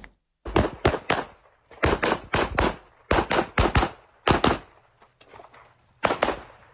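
Gunshots fired in quick strings of three to five shots, a few tenths of a second apart, with short pauses between strings. This is typical of a practical shooting course of fire.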